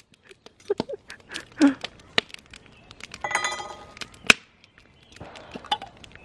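A scatter of sharp clicks and clinks of small hard objects, the loudest about four seconds in, with a brief ringing tone just before it.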